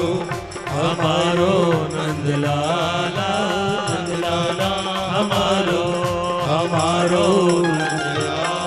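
Hindu devotional bhajan music without words: a melodic line over a steady percussion beat.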